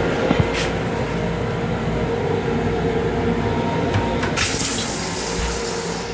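LIRR M7 railcar toilet flushing: about four seconds in, the push-to-flush button is pressed and a hissing rush of water sprays into the stainless steel bowl. Throughout, the steady hum of the railcar runs underneath.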